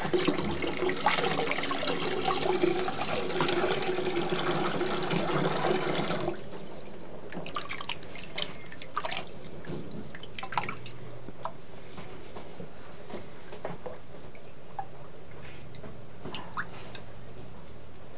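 A sink tap runs into a basin of water and is shut off suddenly about six seconds in. After that, small splashes and drips of water as a hedgehog is scrubbed with a toothbrush in the shallow water.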